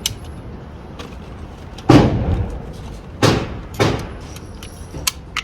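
Three gunshots with a short echo after each: the first and loudest about two seconds in, then two closer together about a second later. Two lighter, sharp clicks follow near the end.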